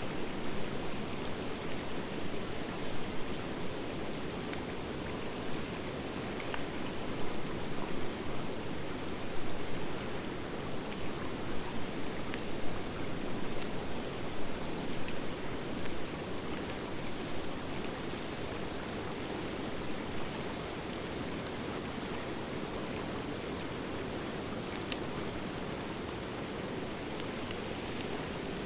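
A campfire of driftwood and dry hardwood logs burning: a steady rush of flame with scattered sharp crackles and pops, which come thicker for a stretch in the middle.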